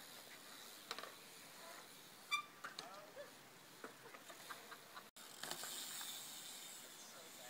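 A BMX bike rolling faintly on a concrete bowl, with scattered light clicks and knocks. The sound drops out for an instant a little past halfway, and a steady hiss is louder after it.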